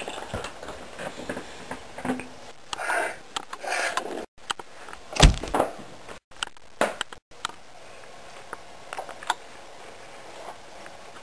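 Scattered rustles and short knocks over a faint steady hiss, with one sharp thump about five seconds in.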